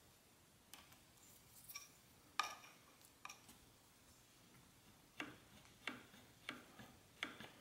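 Faint, separate clicks, about nine of them at uneven intervals, from a mountain bike's front V-brake being squeezed and released to test the cable adjustment, which has just been set a little too tight.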